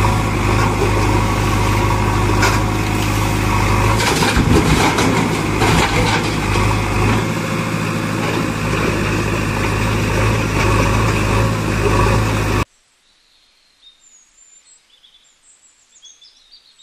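Steady engine drone with a low hum, like a tractor idling, with a few clicks about four to six seconds in. It cuts off abruptly about three-quarters of the way through, leaving only faint bird chirps.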